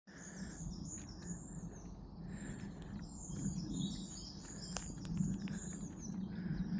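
Woodland birds chirping, many short calls overlapping into a busy chorus, over a steady low rumble. A single sharp click sounds near the five-second mark.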